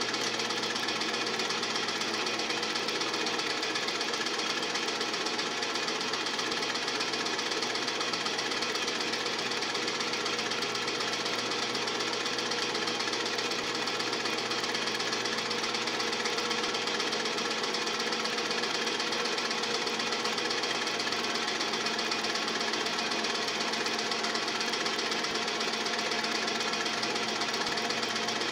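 Film projector running with a steady, unchanging mechanical clatter as the old silent home movie is played back.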